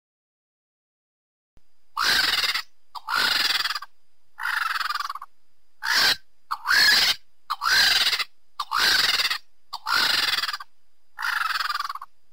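King vulture calling: nine short, harsh calls about a second apart, each rising in pitch, starting about two seconds in.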